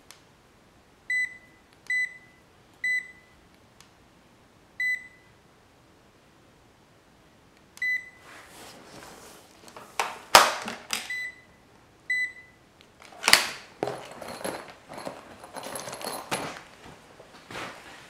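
Fieldpiece SC440 clamp meter beeping: about seven short, high single-pitch beeps, unevenly spaced. From about halfway through, handling noise of rubbing and knocks joins them, loudest about ten and thirteen seconds in.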